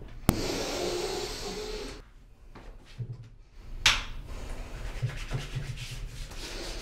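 A man's long, open-mouthed yawn, then rubbing sounds of hands and cloth on skin, with a sharp swish about four seconds in.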